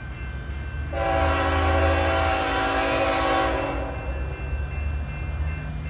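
Freight locomotive air horn sounding one long blast of about three seconds, several tones at once forming a chord, over a low steady rumble.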